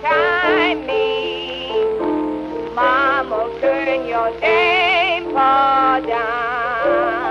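1923 acoustic-era blues record: a woman singing with a wide, fast vibrato over held accompanying notes. The sound is narrow and boxy, with little high treble and a faint hiss of surface noise.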